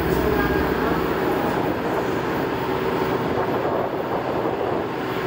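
Rail-grinding train URR-112-5A at work: a steady low diesel drone under a harsh, even grinding noise from its grinding wheels on the rails.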